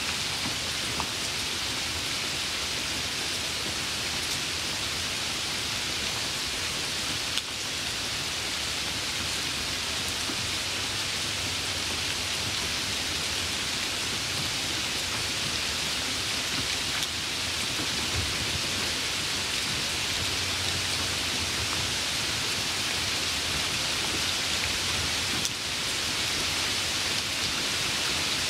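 Steady rain falling, an even hiss throughout, with one brief click about seven seconds in.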